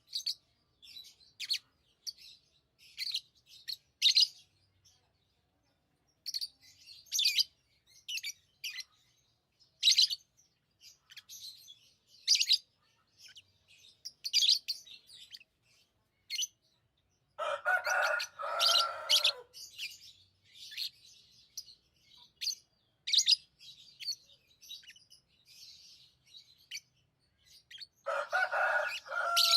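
Pet lovebirds chirping: many short, high chirps coming irregularly, with two longer, lower and harsher bursts of calling, one a little past the middle and one near the end.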